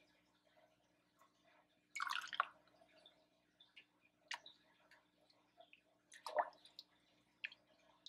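Hot hibiscus tea ladled from a stainless-steel pot into a glass mug: short, faint pours and drips of liquid a few times, with a sharp click about four seconds in.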